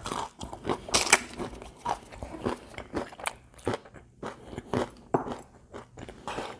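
Close-up crunching and chewing of crispy fried chicken: irregular crisp crackles as the breaded crust is bitten and chewed.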